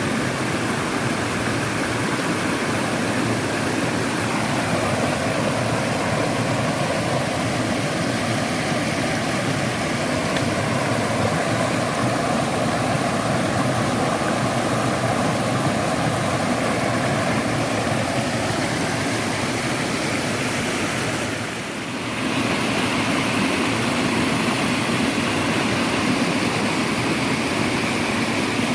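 Steady rushing of a mountain stream and waterfall. The sound dips briefly about three-quarters of the way through, then carries on a little brighter.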